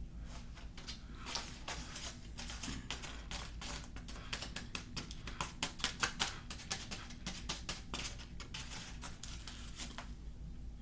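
Close-up crunching and chewing of oven-baked cornstarch: a rapid, irregular run of dry crackling clicks that starts about a second in, grows densest and loudest around the middle and thins out near the end.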